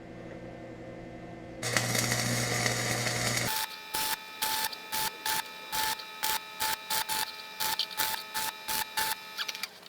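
Stick (arc) welder welding a pulley hub: a steady electrical hum, then the arc buzzing and hissing for about two seconds, then crackling in sharp, irregular pops about two to three times a second until near the end.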